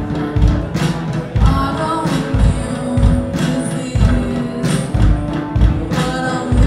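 Live band playing a song: electric guitar and sung vocals over heavy drum hits.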